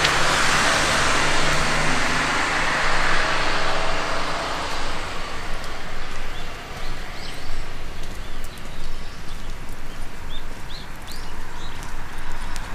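A road vehicle passing close by, its tyre and engine noise fading away over the first five seconds or so; after it, birds chirp now and then.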